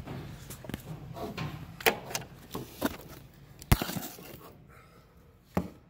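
Scattered taps, knocks and rustling from a handheld phone camera being moved about, with a sharper knock a little before four seconds in and another near the end.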